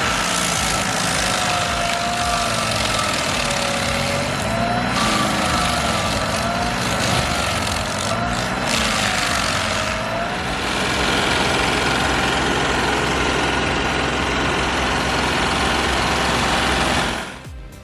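Excavator-mounted Tornado stump grinder running, a steady heavy engine noise under a whine that wavers up and down in pitch during the first ten seconds or so.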